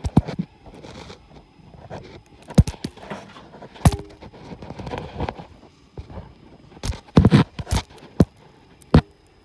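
Irregular sharp knocks and clicks, spaced a second or more apart, with a quick cluster about seven seconds in. They are the handling noise of a handheld camera being moved about inside a bare aluminium airframe.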